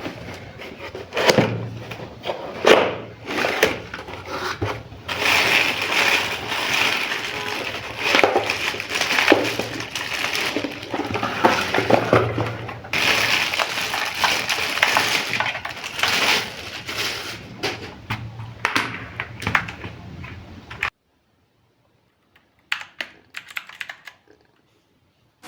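Unboxing handling noise: irregular rustling, crackling and clicks as the gaming keyboard's packaging is handled. It cuts off to near silence about 21 seconds in, with two or three faint clicks after.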